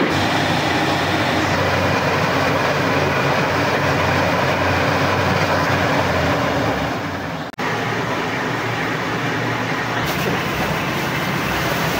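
Borewell drilling rig running loudly: a dense, steady machine noise with an engine hum underneath. It breaks off briefly about halfway through and then carries on slightly quieter.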